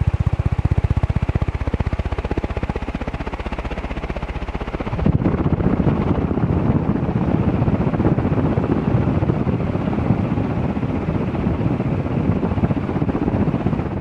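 Palco Carib ceiling fan with 48-inch metal blades running at speed: a steady rush of air with a fast, even pulsing. From about five seconds in it turns louder and rougher.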